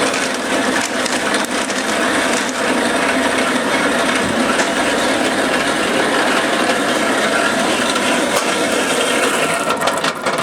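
Motorized roller grain mill crushing brewing malt: a steady, dense crackle of kernels breaking between the rollers. Near the end it thins out into scattered clicks as the last grain passes through.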